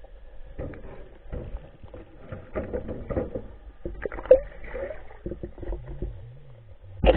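Muffled water sloshing and splashing with irregular knocks, louder about four seconds in and again near the end.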